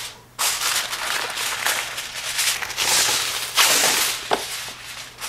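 Aluminum foil crinkling and crackling as a sheet is handled and crimped down over a baking dish, loudest about three seconds in and again shortly after.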